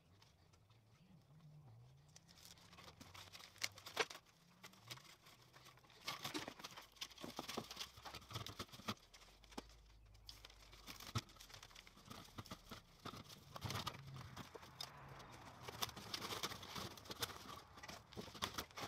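Faint rustling and crinkling, with scattered light clicks and crackles, as tape is pulled off a roll and torn and an aluminium flexible duct is handled and fitted to a small electric forge blower.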